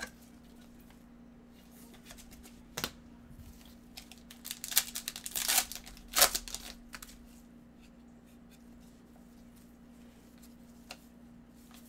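Foil trading-card pack wrapper crinkling and tearing as gloved hands open it. A few seconds of rustling in the middle, with a light click or two before and after.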